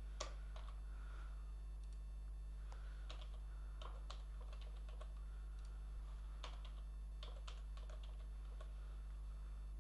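Computer keyboard typing: light, irregular key clicks, over a steady low electrical hum.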